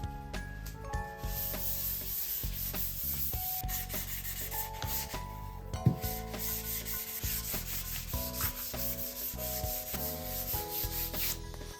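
Sandpaper rubbing over a wooden board: a steady sanding hiss that starts about a second in and stops near the end.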